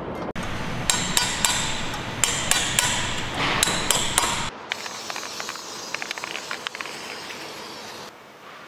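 About a dozen sharp, irregularly spaced metal taps from a hand tool striking the valve gear of a BMW X3 engine's bare cylinder head. They stop about four and a half seconds in, and fainter light clicks follow.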